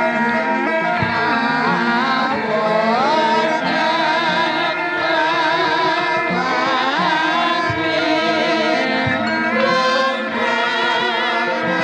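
Javanese gamelan music playing, with a singer's voice holding long, wavering notes and sliding up in pitch a few times over the ensemble.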